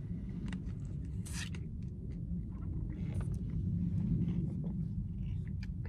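Steady low rumble inside a car, with faint clicks and a brief hiss about a second and a half in as a drink is sipped from a plastic cup.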